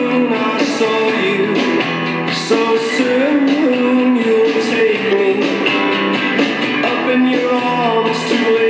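Rock music with electric guitar and drums playing, and a sung melody line.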